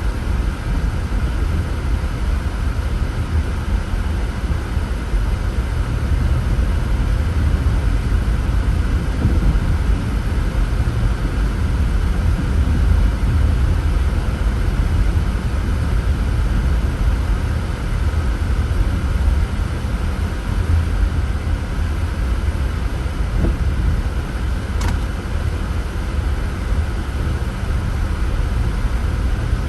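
A car driving along a road: a steady low rumble of tyre and engine noise, with one faint brief click late on.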